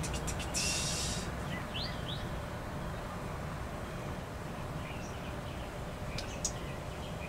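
Outdoor background with a steady low rumble and a few short, rising bird chirps about two seconds in, after a brief rustle just under a second in.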